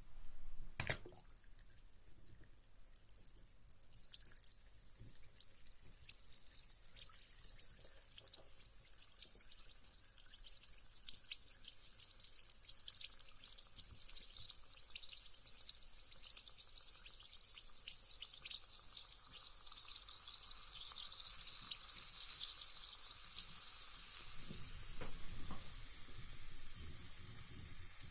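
A carbonated bath bomb dropping into water with a splash about a second in, then fizzing: a fine crackling hiss of bubbles that grows steadily louder as it dissolves, with a brief slosh of water near the end.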